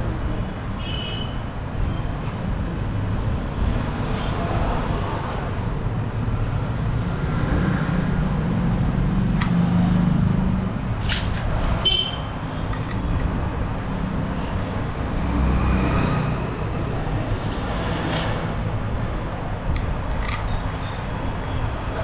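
Road traffic running past, a steady low rumble that swells twice as vehicles pass, with a few short sharp clicks.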